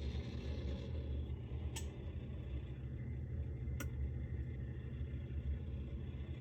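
Steady low machine hum with two sharp clicks about two seconds apart; no beeping.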